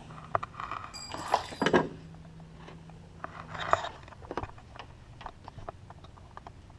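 Hand work on metal hardware: small metal parts and hand tools clinking and rattling with scattered clicks, a short metallic ring about a second in and a brief scrape a little later.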